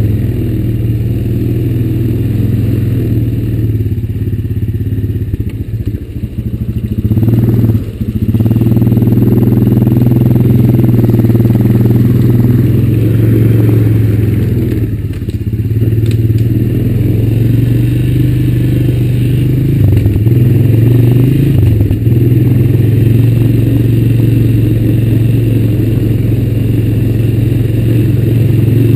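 2004 Honda Recon 250 ATV's single-cylinder four-stroke engine running under throttle while being ridden over a dirt trail. It holds a steady drone that dips about six to eight seconds in and then picks back up, with some clatter from the rough ground.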